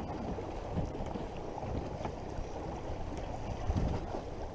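Wind buffeting the microphone over sea water washing against the side of a drifting fishing boat: a steady low rush.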